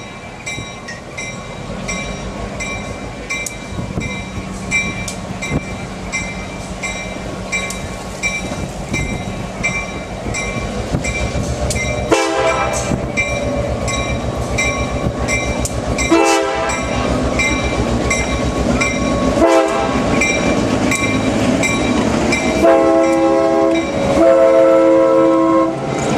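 Diesel locomotive drawing near with its bell ringing steadily and its engine rumbling louder, then sounding its air horn in a long, long, short, long pattern, the grade-crossing signal. Near the end the passenger cars roll by with wheels clicking over the rail joints.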